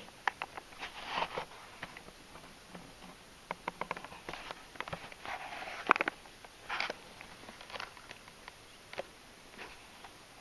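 Cardboard toy box with a clear plastic window being handled and turned over: scattered short clicks and crinkling rustles of the plastic, the loudest about six seconds in.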